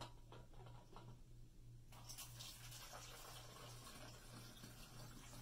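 Vinegar pouring from a plastic bottle through a plastic funnel into a plastic soda bottle: a faint, steady trickle that begins about two seconds in, after a few light clicks of the bottles being handled.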